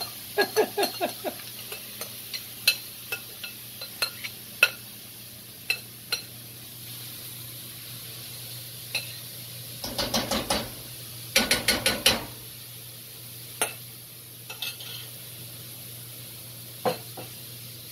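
Chopped vegetables sizzling in a hot pan while a spoon stirs them, scraping and knocking against the bottom, with two busier bursts of scraping about ten and twelve seconds in. The vegetables' water is loosening the browned sausage bits stuck to the pan.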